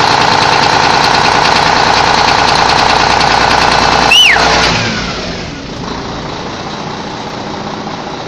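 Renault Magnum E-tech 400.19 truck diesel engine idling with a knocking rattle that comes and goes at 800–1000 rpm, regardless of temperature and load, though compression is as on a new engine. About four seconds in comes a sudden loud sound with a falling whistle, and after it the running is much quieter.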